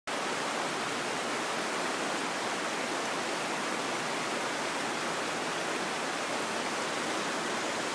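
Shallow, rocky creek running steadily: an even rushing of water over stones.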